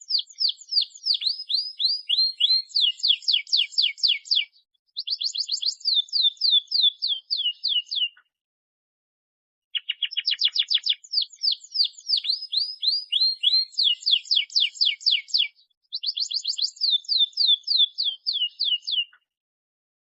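Domestic canary singing: rapid trills and quick falling sweeps, high-pitched. The same phrase, about nine seconds long, plays twice with a short dead silence between, so it is a looped recording. It is a lively canary's song used as a lure to make quiet or young canaries sing.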